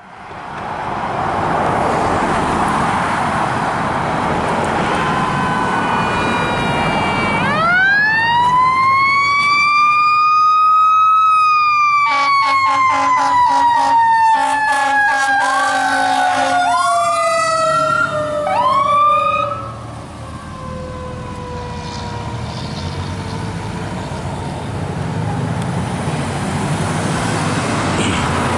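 Fire engine's Federal Q mechanical siren spinning up to a high wail about seven seconds in, then winding slowly down over the next fifteen seconds as it coasts. Midway there is a string of short air horn blasts. The siren is briefly spun up again three times before fading, over passing road traffic.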